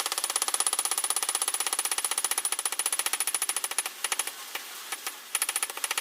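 Rapid, evenly spaced hammer blows on hot steel, about ten a second with a bright metallic ring, drawing out a taper on half-inch round bar. The blows stop briefly twice a little after four seconds in, then carry on.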